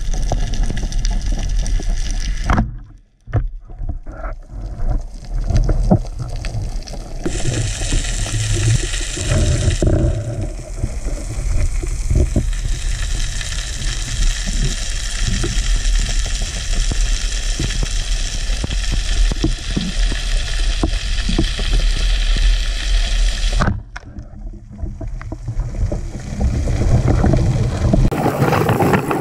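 Underwater ambient noise picked up by a camera on a speargun: a steady hiss with a low rumble, with a few small knocks. It drops away suddenly twice, about three seconds in and near the end.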